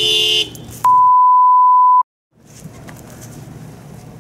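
An edited-in bleep: a loud, steady single-pitch beep lasting about a second, cut off sharply into a moment of dead silence. Just before it comes a brief, loud blast of several steady pitches.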